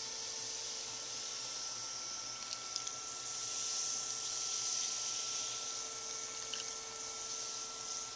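Carbonated beer poured from an aluminium can onto freeze-dried steaks in a glass baking dish, fizzing with a steady hiss as it soaks into the dry meat, with a few small clicks.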